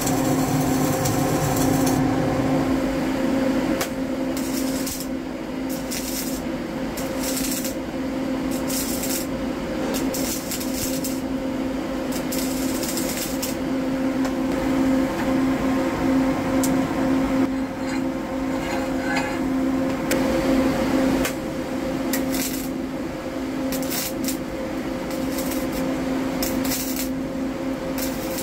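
Steady electrical hum from a CO2 flux-cored (FCAW) welding machine, with several short crackling arc bursts as steel plates are tack-welded.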